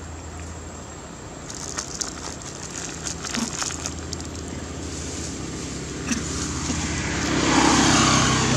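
Short dry crackles and rustles, then a road vehicle passing, its noise swelling to the loudest point near the end.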